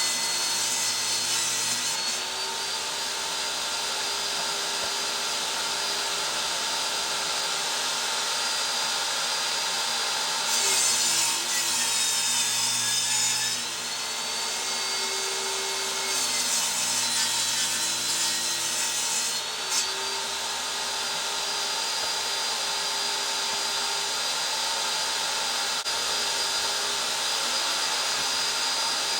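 Power saw running steadily while ripping boards lengthwise to width, with three spells of louder cutting. The motor's pitch sags under load during the middle cut.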